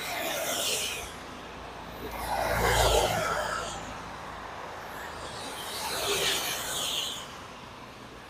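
Cars passing one after another at speed on a rain-soaked road, tyres hissing through the standing water, over a steady hiss of heavy rain. Three passes swell and fade; the loudest, about two to three seconds in, carries a low rumble.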